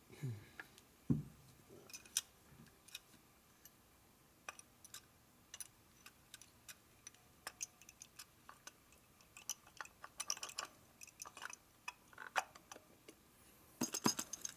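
Irregular light clicks and taps of aluminium carburetor parts as the float bowl of an S&S Super E carburetor is handled and fitted onto the carb body.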